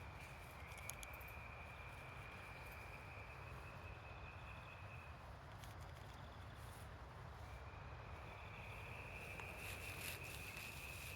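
Faint steady high trill of crickets. It breaks off about five seconds in and starts again about two seconds later, over a low background rumble and a few faint clicks.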